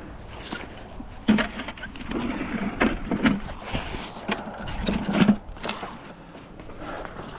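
Dry grass and brush crunching and rustling under footsteps, with several sharp knocks and rattles as a bucket of scrap metal is carried along.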